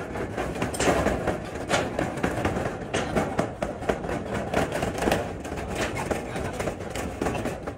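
Adhesive flashing tape being pulled off its roll and pressed onto corrugated galvanized steel roof sheets: a steady crackling and ticking of the tape peeling, with hands and tape rubbing on the metal.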